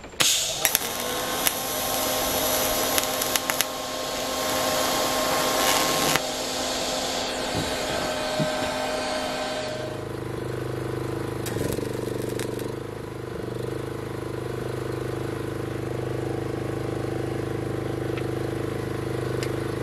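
MIG welder crackling and hissing as a weld is run, loudest for about the first six seconds and fading out by about ten seconds in. A steady low mechanical hum follows.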